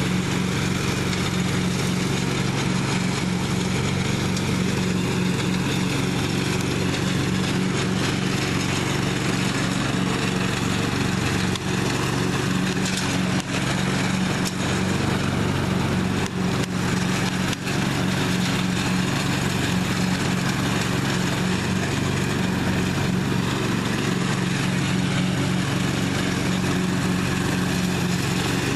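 1998 Husqvarna riding lawn mower's engine running steadily while mowing.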